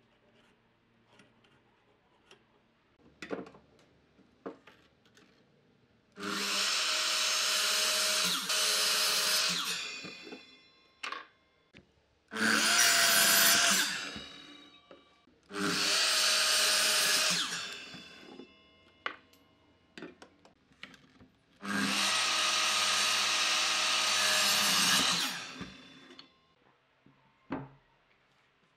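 Electric miter saw cutting through a laminated strip-wood blank four times: each time the motor comes up to speed, cuts for two to four seconds, then winds down. Light clicks and knocks from handling the wood come between the cuts.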